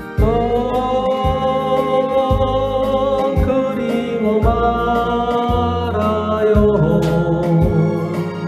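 A man singing karaoke into a microphone over the karaoke machine's backing track, holding long notes over a pulsing bass beat.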